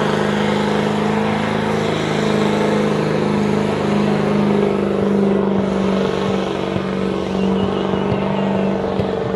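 Car engine held at steady high revs during a burnout, over the rushing noise of the spinning tyres.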